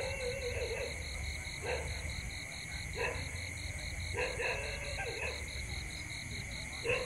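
Tropical night chorus of insects and frogs: a high chirp pulsing several times a second over a steady high buzz, with short croaking calls every second or two.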